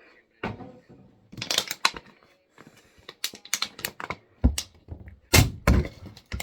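An irregular run of sharp knocks and clacks, about a dozen over five seconds, some with a heavier thud near the end, as of hard objects being handled and set down close to the microphone.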